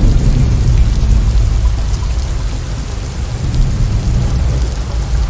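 Heavy rain pouring down steadily on a flooded street, with a strong low rumble underneath.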